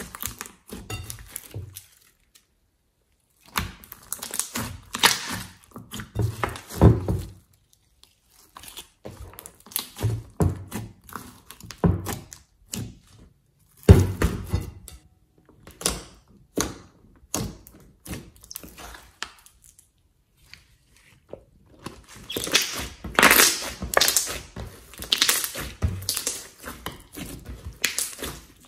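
Blue glitter slime being squeezed, kneaded and stretched by hand, making irregular wet squelches, pops and clicks in bursts with short pauses. About fourteen seconds in, a louder thunk as the slime is slapped down on a wooden table.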